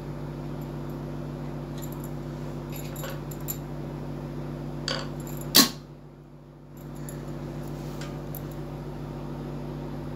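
Small metallic clicks and taps as a screwdriver and presser foot are worked on a sewing machine, fitting a half presser foot for sewing piping; one sharp click about halfway through is the loudest. A steady low hum runs underneath.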